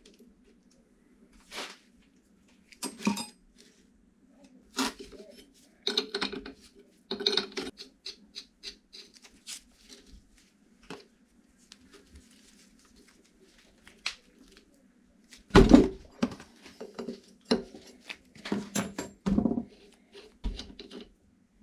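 Irregular metal knocks, clicks and scrapes from the parts of an old 5-ton hydraulic bottle jack being handled and worked on, over a faint steady hum. The heaviest knock comes a little past the middle.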